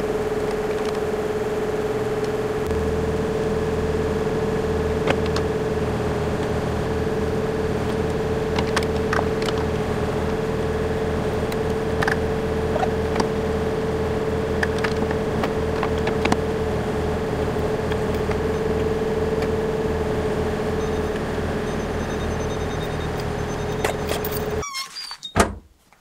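Bobcat skid-steer engine running steadily, with a constant hydraulic whine over its low hum, and occasional metal clinks from tools and chain. The sound cuts off suddenly near the end.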